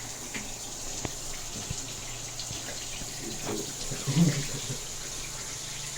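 Shower water running steadily and spraying onto a dog being bathed, with a brief voice about four seconds in.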